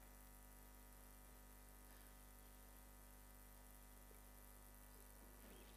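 Near silence: a faint, steady electrical mains hum.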